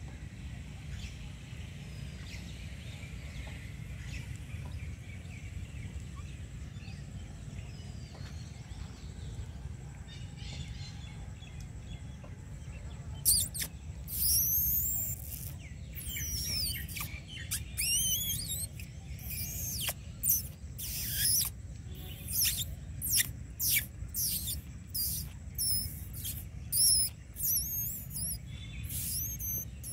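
High-pitched bird chirps with quick rising and falling sweeps, in a rapid, irregular series that starts a little before halfway, over a steady low rumble.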